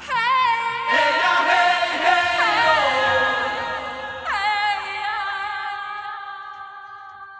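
Music with a singing voice holding long, wavering notes. A new phrase starts about four seconds in and fades away near the end.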